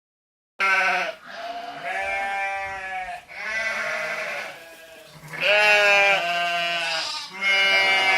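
Bleating: about five long, wavering calls one after another, starting after a brief silence.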